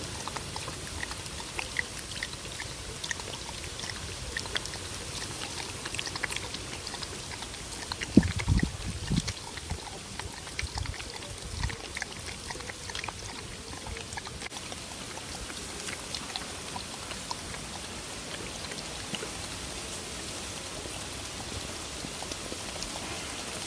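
A dog lapping milk from a bowl: a run of small wet clicks over a steady hiss, with a few loud low thumps about eight to nine seconds in.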